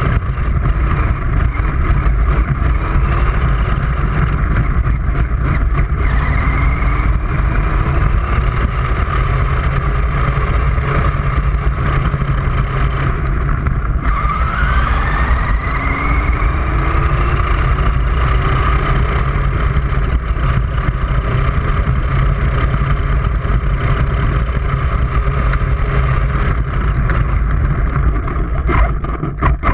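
Radio-controlled toy car's motor whining and rising in pitch each time it accelerates, several times over, above a steady low rumble as it drifts on dirt.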